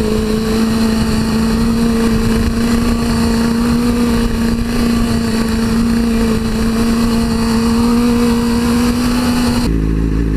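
A 2002 Suzuki GSX-R600's inline-four engine running at a steady cruising speed, one held note that rises very slightly, under heavy wind rush on the bike-mounted camera. Near the end it cuts suddenly to motorcycle engines idling.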